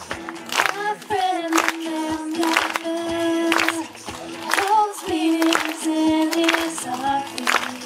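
A young female voice singing into a microphone, holding long notes that bend in pitch, over a steady beat that lands about once a second.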